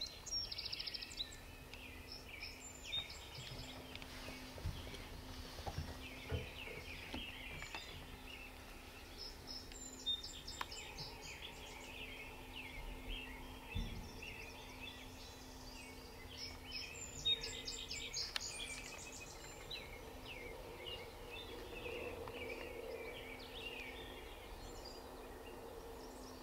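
Songbirds singing in a morning chorus, one bird repeating a high song every few seconds over scattered chirps from others.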